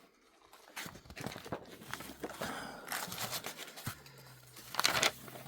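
Old papers and documents being rustled and shuffled through by hand, with irregular crinkling and crunching and a louder crackle near the end. A faint low hum starts about halfway through.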